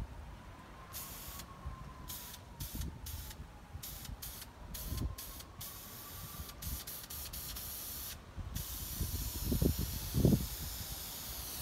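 Aerosol can of gray spray primer hissing, first in a run of short spurts, then in one continuous spray for the last few seconds. A couple of low thumps come near the end.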